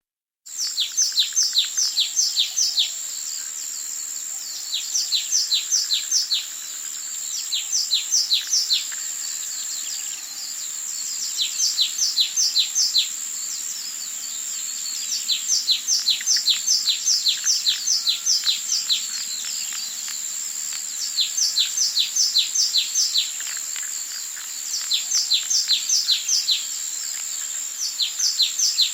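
Songbirds singing in repeated phrases of quick downward-sweeping notes. Each phrase lasts about two seconds, with short pauses between them, and a steady high-pitched whine runs underneath.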